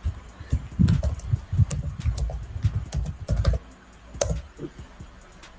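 Typing on a keyboard: a quick, irregular run of key clicks with dull thumps from the desk, entering an Instagram handle. The typing stops about four and a half seconds in.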